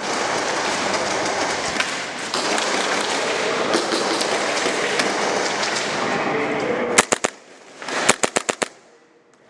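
Steady rushing noise, then near the end two quick strings of sharp pistol shots from game pistols: about four, then six or seven more in rapid succession.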